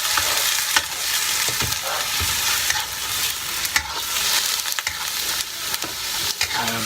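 Chicken searing in very hot oil: a steady loud sizzle with scattered sharp pops and spatters.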